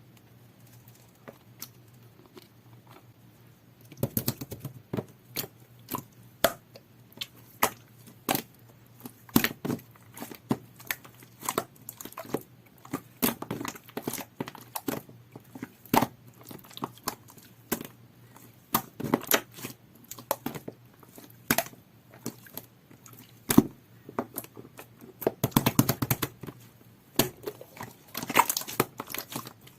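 Green two-layer jelly slime being squished and pulled by hand, giving irregular sharp pops and clicks that start about four seconds in and bunch into dense crackling runs near the end.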